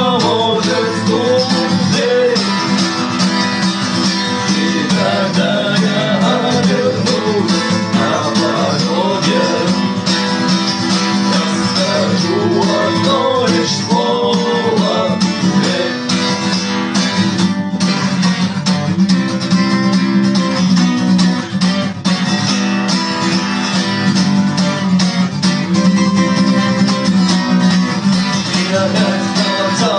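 Acoustic guitar playing a song, strummed steadily, with a voice singing along.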